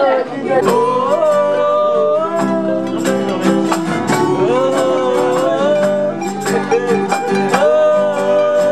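Background music: a country-style tune with plucked strings and a held melody line over a steady bass.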